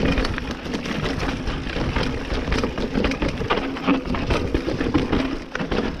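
Giant Reign SX enduro mountain bike rolling fast down a dirt trail: tyres over dirt and roots, with the chain and frame rattling in many irregular clicks and knocks.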